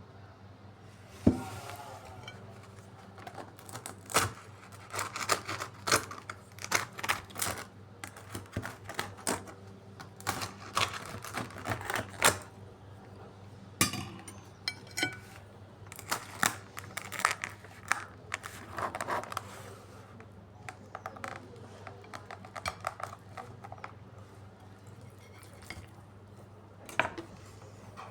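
Close-miked eating sounds: irregular sharp clicks, crunches and light clatter of food, utensils and dishes, in clusters over a steady low hum.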